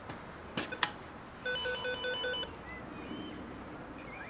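Apartment building door-entry intercom panel sounding its call tone: a rapid pulsing electronic beep, several pitches at once, lasting about a second. It comes after two sharp clicks near the start.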